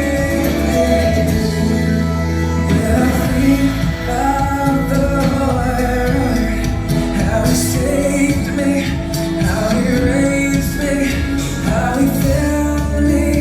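Recorded song with singing over an instrumental backing.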